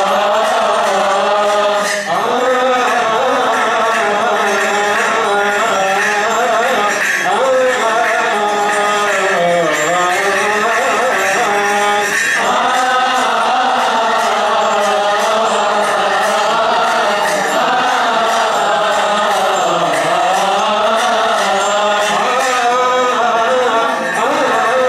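Coptic Orthodox liturgical chanting: a long, melismatic hymn line sung almost without a break, the pitch sweeping slowly up and down.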